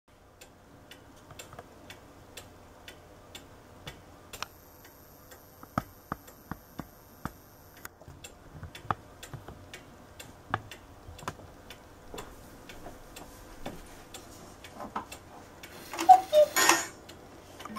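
1954 carved cuckoo clock's weight-driven movement ticking steadily, about two ticks a second. Near the end there is a brief, louder rattle.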